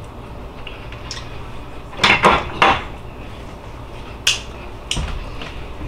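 A bowl knocks against the counter three times in quick succession about two seconds in as it is set down. A sharp smack of finger-licking follows, then a softer knock near the end, over a steady low hum.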